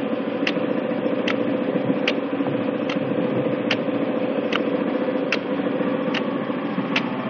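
Iseki Lovely Mini four-row rice transplanter's engine idling steadily, with a sharp tick repeating a little more than once a second.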